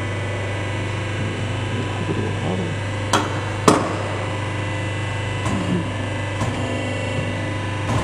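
Sharp metal knocks from a metal bar and aluminium sleeve handled against the steel jaws of an air-suspension crimping machine's die: two loud clinks about half a second apart, then a few lighter taps, over a steady machine hum.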